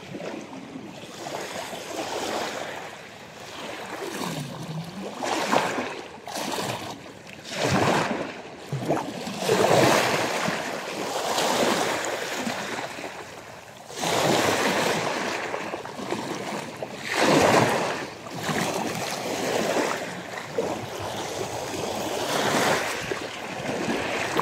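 Choppy sea at high tide, waves washing in and surging every few seconds, with wind blowing.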